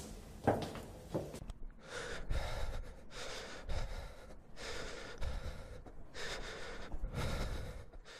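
A person breathing heavily, a run of loud breaths in and out at a little more than one a second. Two short knocks come in the first second and a half.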